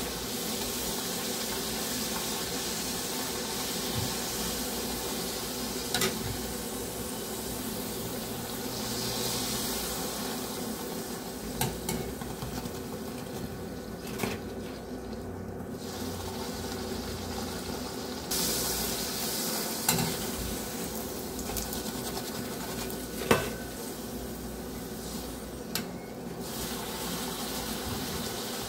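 Hot oil sizzling steadily as a sweet potato puri deep-fries in a kadai, with a few short clicks of the metal wire skimmer against the pan.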